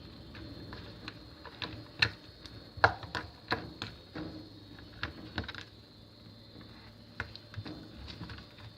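Slime being kneaded and stretched by hand, giving irregular sticky clicks and pops, the loudest about two and three seconds in.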